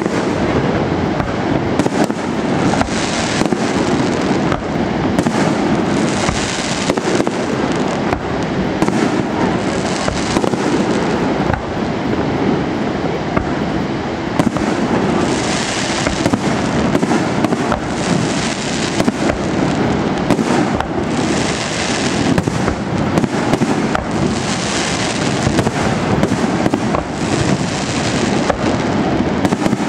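Fireworks display going off continuously: dense overlapping bangs and crackling, with no break. Bursts of brighter crackle come several times in the second half.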